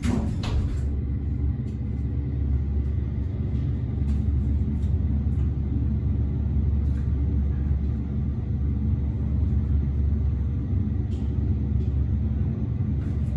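Elevator car in motion, heard from inside the cab: a steady low rumble with a faint steady hum over it and a few light clicks.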